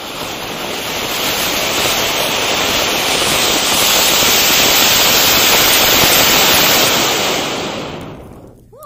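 A giant Diwali flower pot (fountain firework) burning, spraying sparks with a loud, steady rushing hiss that builds over the first couple of seconds and dies away near the end as it burns out.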